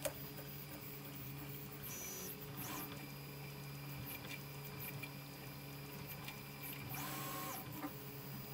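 Prusa i3 MK3 3D printer printing: a steady low hum under short pitched stepper-motor whines as the print head moves, the most prominent about two seconds in and again about seven seconds in, with a sharp click at the start.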